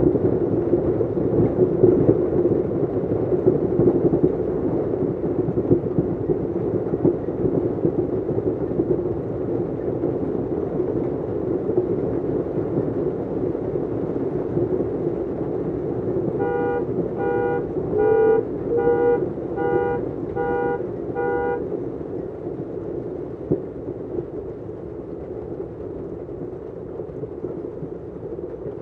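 Heavy hail pelting pavement and parked cars, a dense steady rush that eases off over the last several seconds. Past the middle, a car horn sounds about seven times in a steady rhythm, roughly a honk every 0.7 seconds, then stops.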